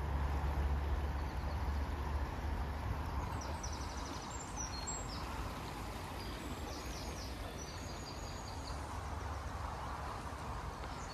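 Small songbirds singing in rapid high trills, repeating from about three seconds in, over steady outdoor background noise with a low rumble that fades in the first few seconds.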